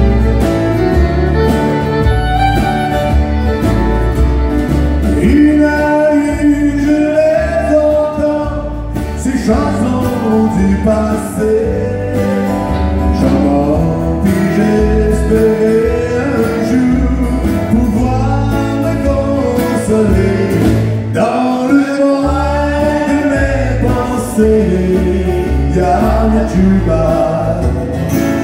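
Live acoustic country music: strummed and picked acoustic guitars with a fiddle, and a man singing lead from about five seconds in.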